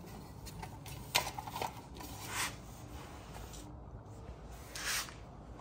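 Plastic toy parts and paper instruction sheets being rummaged through and handled: scattered soft clicks of plastic pieces, with a few short rustling scrapes.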